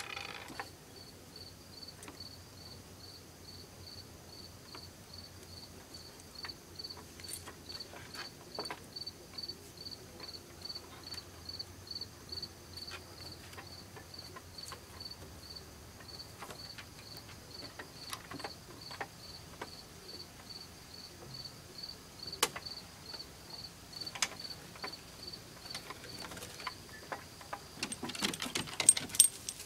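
A cricket chirping steadily, about two high chirps a second. Faint scattered clicks and taps come through it, with a short stretch of louder shuffling near the end.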